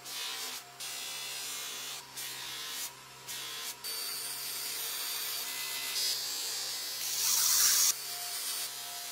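Bench polisher running with a steady motor hum while small metal pencil-sharpener parts are held against its cloth buffing wheel, making a rubbing hiss. The sound is broken by abrupt cuts and is loudest about two seconds before the end.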